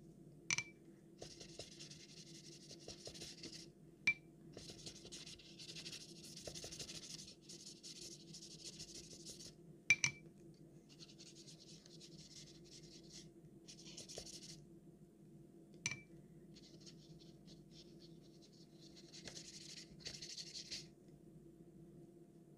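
Pen nib scratching across paper in runs of drawing strokes lasting a few seconds each, broken by short pauses. Four sharp clicks with a brief ring are spread through, over a faint steady hum.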